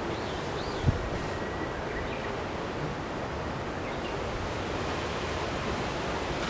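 Steady outdoor background hiss, like wind through trees, with a few faint high bird chirps in the first couple of seconds and a single soft thump about a second in.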